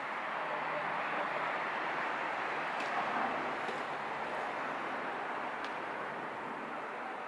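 Steady rushing street noise with a few faint clicks.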